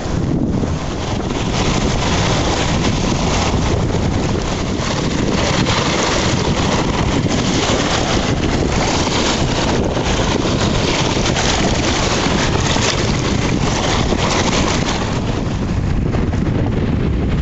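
Strong wind blowing over the microphone, a loud, steady rushing noise with no let-up.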